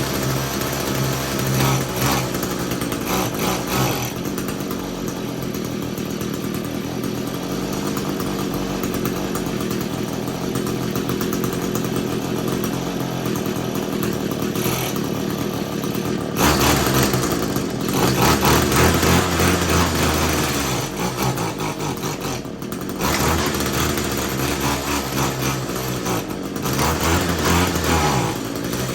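Echo SRM-225 string trimmer's small two-stroke engine running, steady at first, then revved up several times in the second half with dips between revs. It is running poorly: the owner says the carburetor is flooding over and needs cleaning, beyond what the adjustment screws can fix.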